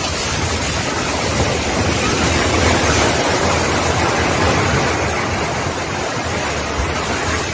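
Multi-storey apartment building collapsing in an earthquake: a loud, steady rushing noise of falling concrete and debris, with a heavy low rumble underneath.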